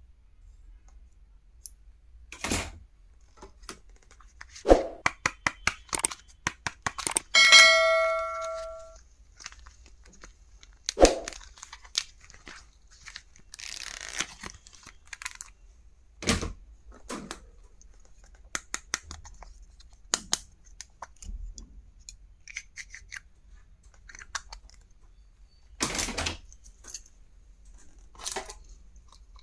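Stationery and its packaging being handled and unboxed: a string of sharp clicks and taps, with short tearing or rustling sounds. About seven seconds in, something rings briefly with a metallic, bell-like tone.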